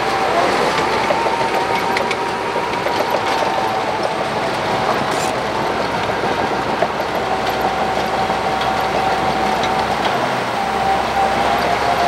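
Shantui crawler bulldozer working, its diesel engine running under load with the clatter of its steel tracks, and a steady high whine running through it.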